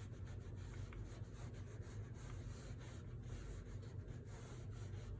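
Soft rubbing and light scraping of a small craft iron being slid over fabric scraps to fuse them with HeatnBond fusible web, over a steady low hum.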